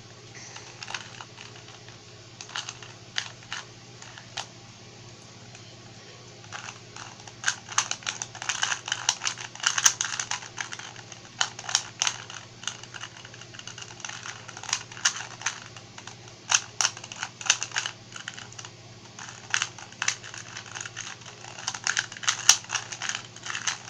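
A plastic 2x2 Rubik's cube being turned by hand: irregular clicks and clacks of its layers. They are sparse at first, then come rapid and almost continuous from about six seconds in.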